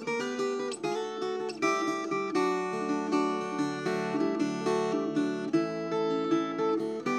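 Acoustic guitar music: plucked and strummed notes changing in quick succession.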